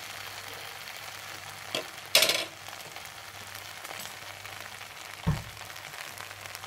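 Sauce-coated fried potatoes and onions sizzling in a wok with a steady low hiss. A short loud clatter comes about two seconds in, and a dull thump a little after five seconds.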